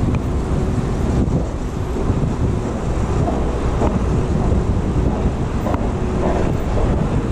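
Steady wind rush and low rumble on a chest-mounted GoPro Hero 6 microphone while a mountain bike is ridden at speed.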